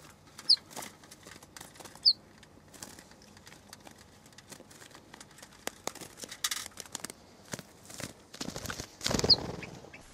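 Wire-mesh cage traps for catching ortolan buntings clicking and rattling as they are handled and opened, with three short high squeaks and a burst of rustling near the end.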